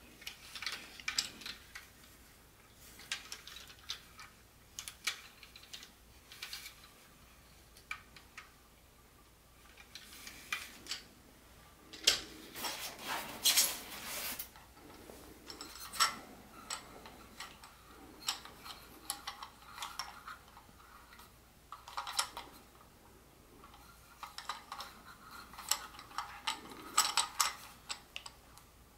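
Handling of plastic toy train cars: scattered clicks and knocks as the cars are picked up, turned over and set down, with a longer rustling scrape about twelve to fourteen seconds in.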